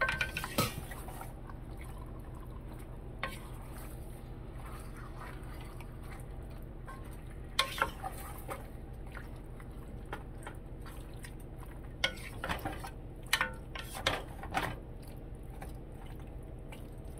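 Wooden spoon stirring and turning curry-marinated chicken pieces in a stainless steel pot, giving scattered knocks and scrapes against the pot, most of them in the second half, over a steady low hum.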